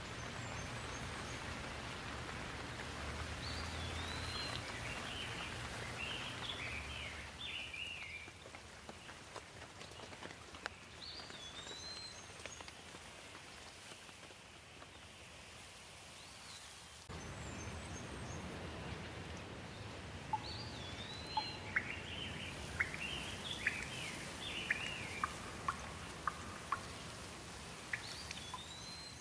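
Steady rain falling, with songbirds chirping in short bursts of quick rising and falling notes. A low rumble of thunder sits under the first several seconds, and sharp water drips tick irregularly through the second half.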